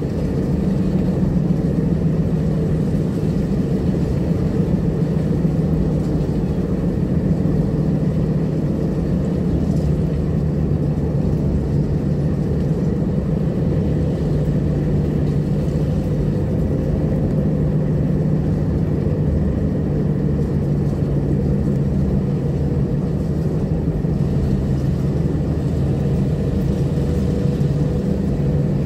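Steady drone of a car driving at a constant speed, engine and tyre noise heard from inside the cabin.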